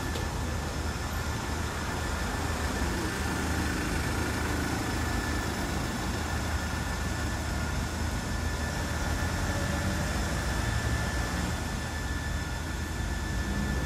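Steady low engine rumble of street traffic, with a faint steady high-pitched whine over it.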